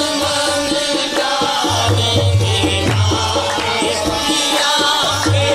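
Qawwali music: a sustained melodic line over steady hand-drum strokes, with deep drum thuds coming and going.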